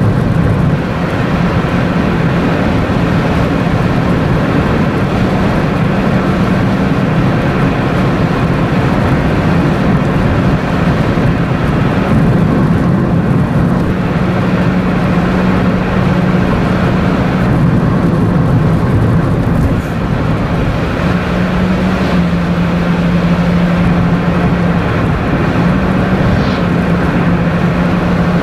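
Steady road and engine noise inside a car's cabin at highway speed, with a low drone that shifts slightly in pitch every few seconds.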